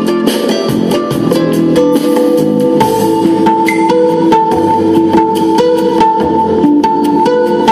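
Live music: strummed guitar with drums, a steady rhythmic accompaniment with sustained notes over it.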